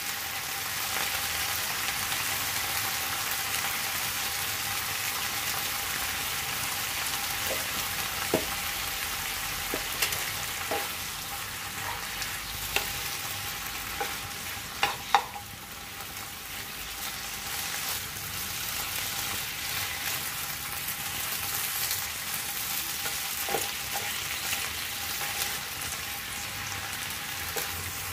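Pechay (bok choy) sizzling in oil as it is stir-fried in a nonstick wok, a steady frying hiss. A wooden spatula knocks and scrapes against the pan now and then, most sharply about halfway through.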